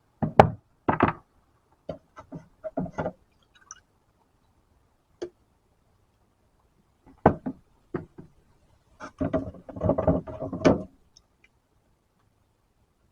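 Lead fishing sinkers knocking and clacking against each other and a hard surface as they are handled, coming in several clusters with a dense clatter near the end.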